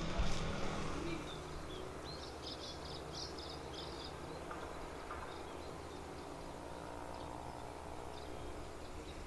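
Outdoor ambience: a steady low background hum, with a bird chirping a quick run of short, high notes about two to three seconds in. A louder noise dies away in the first second.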